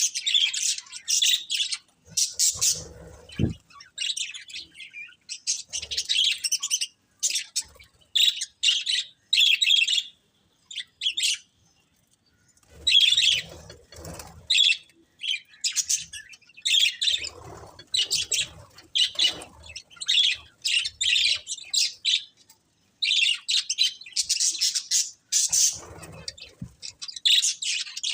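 Budgerigars chirping and warbling in quick, irregular bursts of high chatter with short pauses, and a few soft low rustles or thumps.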